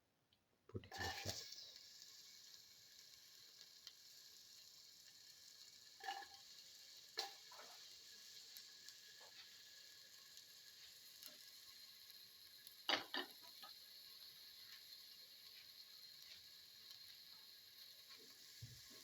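Chopped shallots tipped into hot oil in a pan about a second in, setting off a steady sizzle of frying. A few sharp knocks of a spoon stirring come later.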